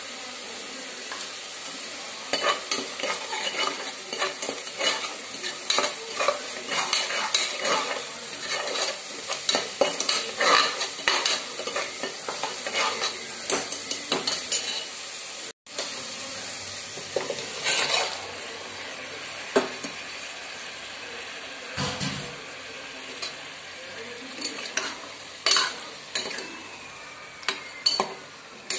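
A spoon stirring and scraping against a metal pot of chicken gravy sizzling on the heat, over a steady frying hiss. The scrapes come thick and fast in the first half, break off for a moment about halfway, then come more sparsely.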